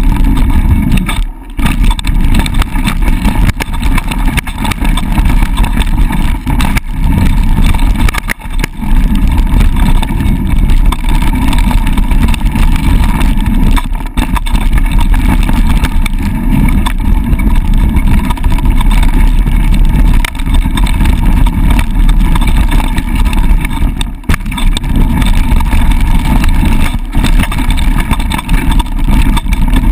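Mountain bike descending a dry dirt trail at speed, recorded close on an action camera: a steady loud rush of wind over the camera mixed with the rumble of the tyres on the dirt. It dips briefly a few times.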